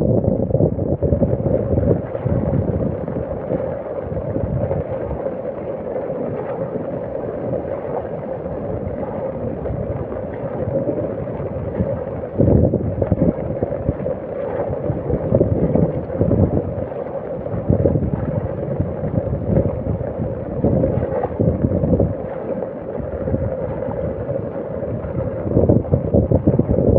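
Floodwater rushing steadily after heavy rain, with wind buffeting the microphone in irregular low gusts.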